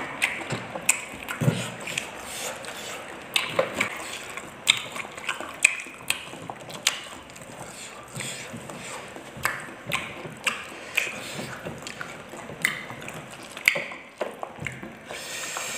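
Mouth sounds of people eating by hand: chewing and crunching fried food, with lip smacks making many short, sharp, irregular clicks.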